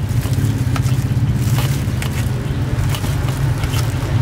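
Steady low engine drone of street traffic, with a few faint clicks and scrapes of a knife against a steel tray as a soft layered cake is cut.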